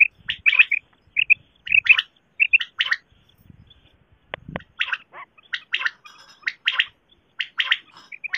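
Quail calling: clusters of short, high chirping notes repeated over and over, with a pause of about a second and a half near the middle.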